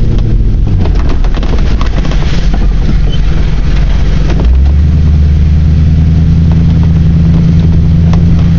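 Ford Bronco's engine running steadily under way, heard from inside the cab, with scattered knocks and rattles. About halfway through the engine note changes and settles into a steady drone.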